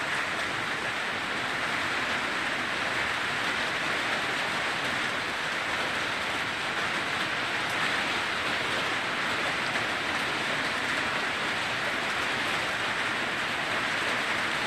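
Heavy hurricane rain falling steadily, an even, unbroken hiss with no separate impacts.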